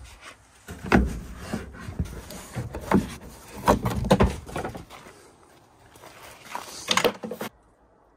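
Irregular knocks and clunks of hard objects being handled and struck, about a dozen over several seconds, cutting off suddenly near the end.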